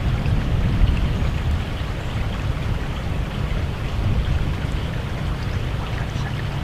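Wind buffeting the camera's microphone: a steady rumbling rush with a fluttering low end and a hiss of air over it, with no breaks.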